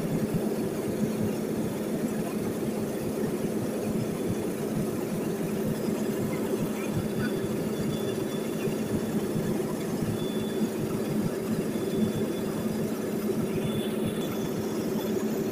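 Steady engine and propeller drone of a small high-wing plane in flight, heard inside the cabin, with an even low hum that does not change.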